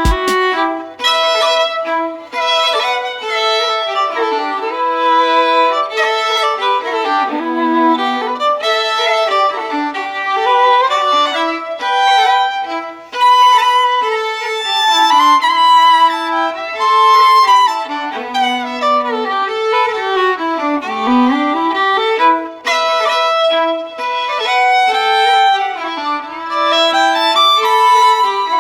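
Background music: a lively fiddle tune of quick notes that keep rising and falling.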